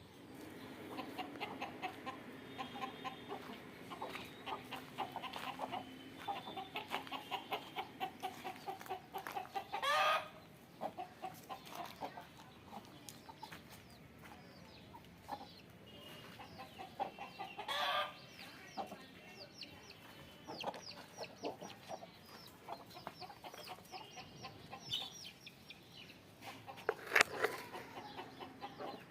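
A flock of Aseel chickens clucking and chattering, with short, louder squawks about 10, 18 and 27 seconds in.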